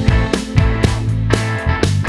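Rock song playing: sustained guitar and bass chords over regular drum hits.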